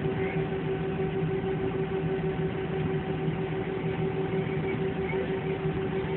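Steady airliner cabin noise: a constant rush of engine and air-system noise with a low, unchanging hum of several steady tones.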